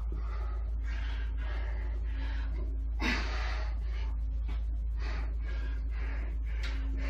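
A man breathing hard and fast while straining through a set of dips, short forceful breaths about twice a second, with one louder, longer exhale about three seconds in. A steady low hum runs underneath.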